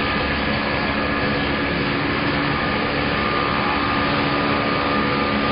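A machine running steadily: an even noise with a constant hum.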